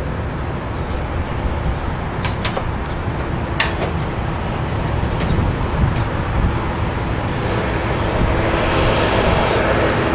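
Steady outdoor background noise, like distant traffic, with a few short sharp clicks about two to four seconds in.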